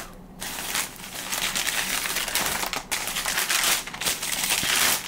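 Crinkling and rustling of wrapping being handled as a sneaker box is unpacked by hand, with a few brief pauses.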